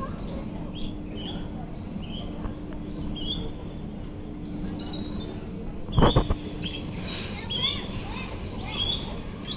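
Many birds chirping and whistling in short, repeated calls, with a brief cluster of loud knocks about six seconds in.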